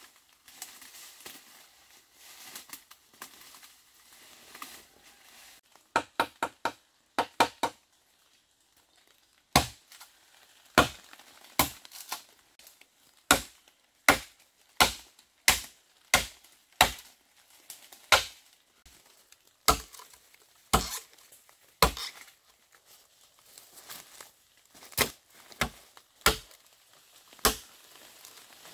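Tool striking bamboo: faint rustling, then a quick flurry of light knocks, then steady sharp chopping blows about one a second.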